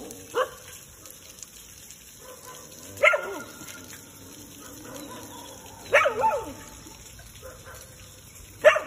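An animal's short, high calls repeating about every three seconds, each starting sharply and falling in pitch.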